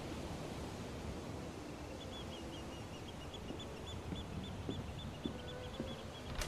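Quiet seaside ambience: a steady rushing background with a bird chirping in a quick run of short calls from about two seconds in. Soft sandaled footsteps creep across a wooden deck, tapping about twice a second in the second half.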